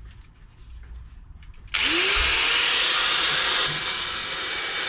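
Handheld power grinder starting up about two seconds in, its motor whine rising as it spins up, then grinding steadily on the steel suspension mount to clean it back to bare metal.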